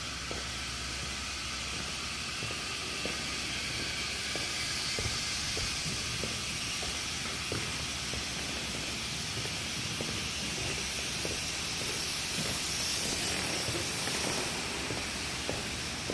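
Steady hiss, with faint, irregular taps of footsteps on a concrete floor.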